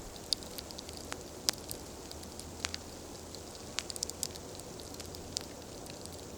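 Wood campfire crackling: sharp, irregular pops and snaps over a steady low hiss of burning.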